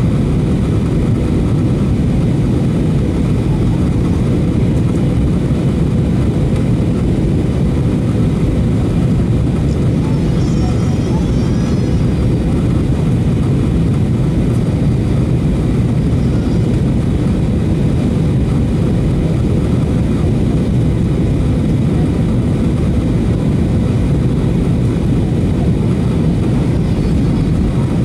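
Steady cabin noise inside a Boeing 737-800 on approach to land: a low, even rumble of its CFM56 jet engines and the air rushing past the fuselage, with a faint steady hum on top.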